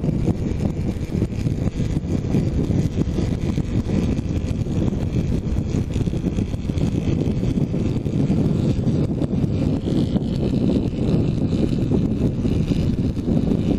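Wind buffeting a helmet-mounted action camera's microphone on a moving motorcycle: a steady, loud, low rush with no breaks.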